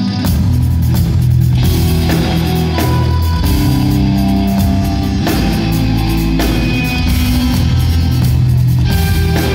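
Live instrumental progressive metal played by two electric guitars and a drum kit; the drums and full band come in just after the start, over a guitar part, and play on densely.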